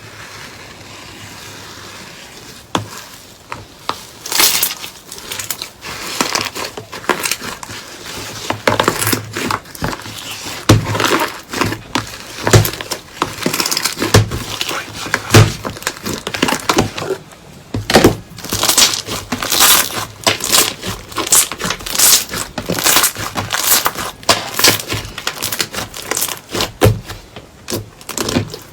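Slime being squeezed and pressed close to the microphone, giving dense, irregular crackling and popping, with louder snaps every second or so, starting about two and a half seconds in.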